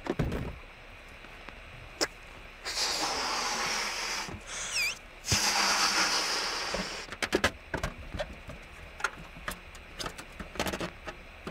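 A rubber balloon being blown up in two long breaths, with a brief squeak of the stretching rubber between them. Under it runs the faint hiss of a car radio tuned to static between AM stations. From about seven seconds in come scattered crackling pops as the balloon is handled.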